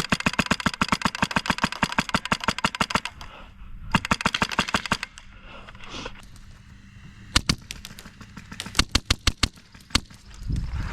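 Airsoft guns firing on full auto: a long, fast string of shots for about three seconds, a shorter string about a second later, then bursts and single shots from about seven seconds in.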